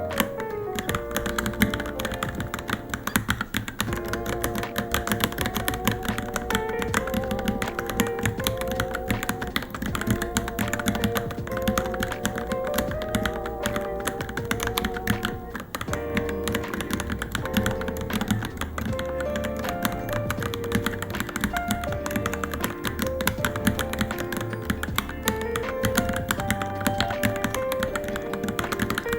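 Continuous fast typing on a Varmilo Minilo mechanical keyboard: a dense, unbroken run of key clacks over background music.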